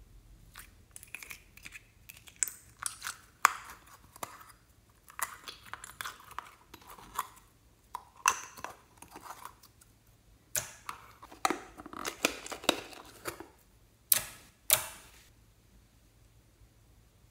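Clear slime being squeezed and pulled out of a plastic tub by hand: irregular sticky clicks, pops and crackles, with two sharper snaps near the end.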